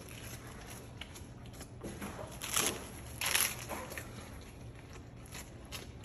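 A Doberman puppy biting into a romaine lettuce heart held in a hand: crisp crunching and crackling of the leaves in short bites, the two loudest a little under a second apart in the middle.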